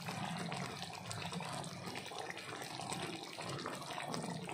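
Spicy chicken roast simmering in its gravy in a cooking pot, bubbling steadily.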